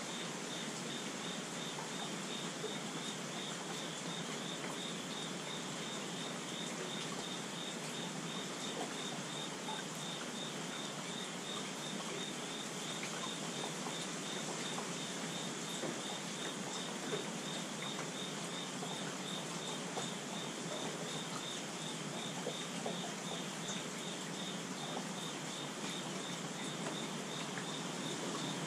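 Steady rainfall, with an insect chirping in an even, high-pitched rhythm throughout.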